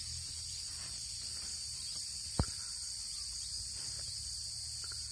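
Steady high-pitched chorus of crickets with a low rumble beneath, and one sharp click about two and a half seconds in.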